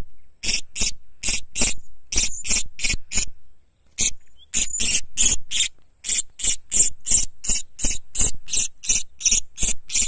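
Blue-crowned hanging parrot held in the hand, giving short, shrill screeching calls over and over, about three a second, with a brief pause about three and a half seconds in.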